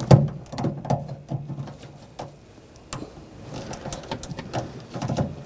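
Irregular small clicks and scrapes of plastic as a trim tool is worked under a wiring connector's retainer inside a car door, prying it loose.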